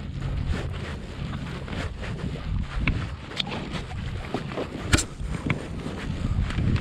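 Wind buffeting the microphone and water slapping against an inflatable boat's hull, with scattered small knocks and rubs from a crab-pot line hauled in hand over hand. One sharp knock about five seconds in.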